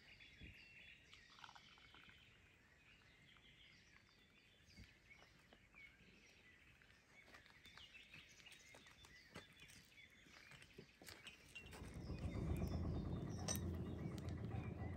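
Small birds chirping, with a few faint knocks. Near the end a louder low rumbling noise comes in.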